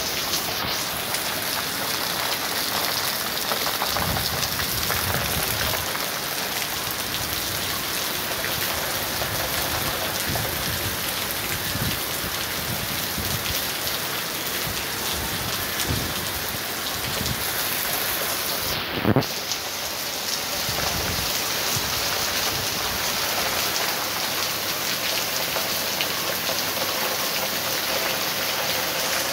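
Heavy rain pouring steadily, with low rumbles of thunder and one sharp crack about two-thirds of the way through.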